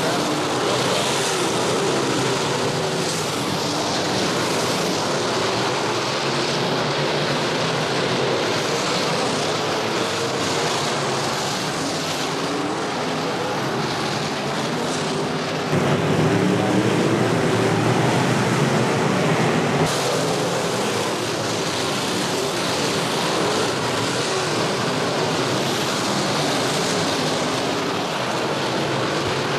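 A pack of IMCA Modified dirt-track race cars' V8 engines running hard at race speed, a blended engine noise whose pitch wavers up and down as the cars lap. It gets louder for about four seconds past the middle.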